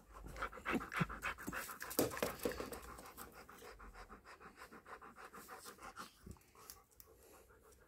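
Siberian husky panting rapidly close up, several quick breaths a second, dying away about six seconds in.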